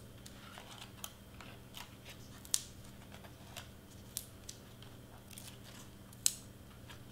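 Cut cardstock layers being handled: scattered soft taps and paper rustles, with two sharper clicks about two and a half and six seconds in, over a faint steady hum.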